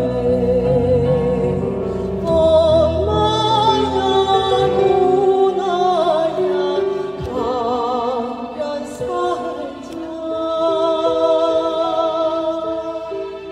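A soprano and a Korean traditional folk singer sing a children's song together with wide vibrato, over electronic keyboard accompaniment. The song closes on a long held note that fades away near the end.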